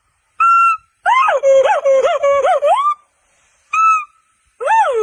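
Monkey calls: high whistle-like cries in separate bursts. A short level call comes about half a second in, then about two seconds of fast warbling that swings up and down in pitch, a brief call near four seconds, and a swooping call near the end.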